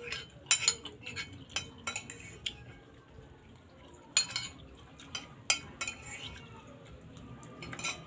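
Metal spoon clinking and scraping against a ceramic bowl as food is scooped up, in irregular sharp clinks with quieter stretches between.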